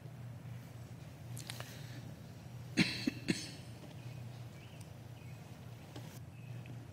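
Quiet room tone with a steady low hum, broken about three seconds in by a quick run of three sharp knocks or clicks, with a few fainter ticks and rustles around it.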